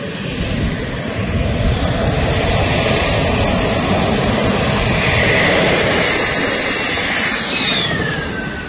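Dassault Rafale fighter's twin turbofan jet engines, coming in to land and growing louder as it approaches. It passes close by near the end, where its high whine drops sharply in pitch.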